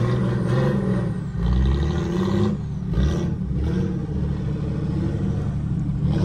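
Off-road 4x4's engine revving hard as it climbs a steep, bumpy slope, its note rising and falling unevenly with brief dips as the throttle is worked.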